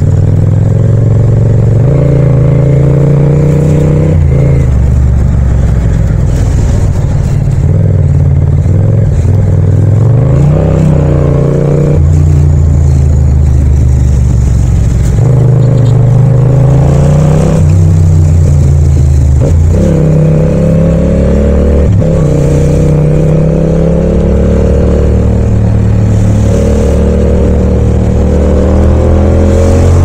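Yamaha MT-07's 689 cc parallel-twin engine and exhaust under way in city riding: the revs climb in each gear and drop sharply at each shift, over and over, with a few lifts of the throttle between.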